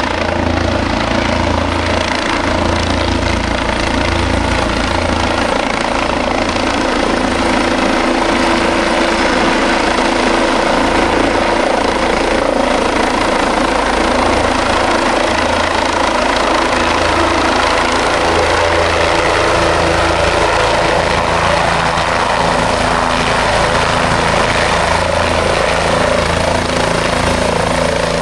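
Helicopter running loud and steady: engine whine and rotor noise with a pulsing low thrum from the blades.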